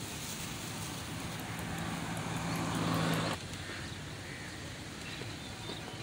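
A motor vehicle's engine hum grows louder over steady outdoor background noise, then cuts off abruptly a little past halfway, leaving only the quieter outdoor background.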